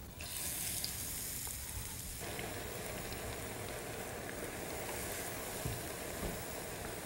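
Hot ghee sizzling steadily in a wok heated for deep-frying at about 360 degrees. The sizzle turns fuller and deeper about two seconds in.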